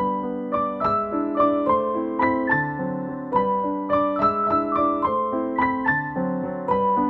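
Background piano music: a melody of single notes played at an even pace, about three a second, over held lower notes.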